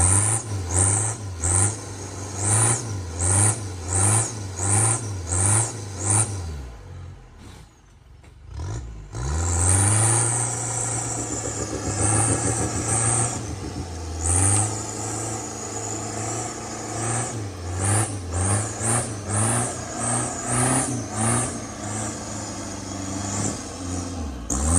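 Off-road vehicle's engine revving in repeated short bursts, about two a second. It drops away briefly about seven seconds in, then rises again and runs steadily before the rhythmic revving resumes near the end.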